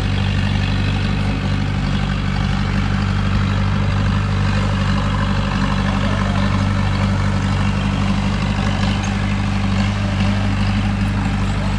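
Heavy diesel engine of earthmoving machinery running steadily at a constant speed, with a deep, even hum.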